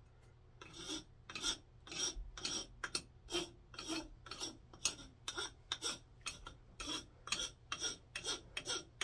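Four-in-hand wood rasp stroked back and forth over a wooden hammer handle, a steady rasping rhythm of about two strokes a second. It is the curved side of the rasp shaping the flared top of the handle just below the head.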